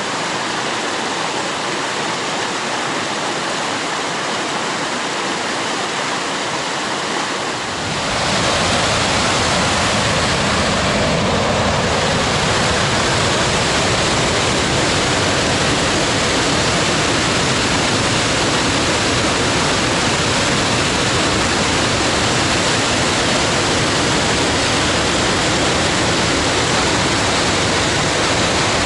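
Steady rush of a creek cascading over rocks. About eight seconds in it gives way to the louder, deeper, continuous roar of a wide waterfall.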